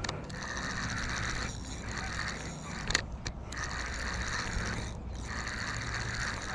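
Fishing reel being cranked steadily, its gears whirring, with a few short pauses, as a hooked fish is reeled in.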